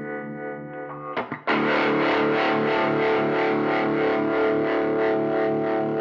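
Electric guitar, a 1955 Gibson Les Paul Junior, played through a converted Bell & Howell 614 AQ Filmosound projector amplifier. A held chord rings, then a louder chord is struck about a second and a half in and sustains, pulsing evenly with tremolo.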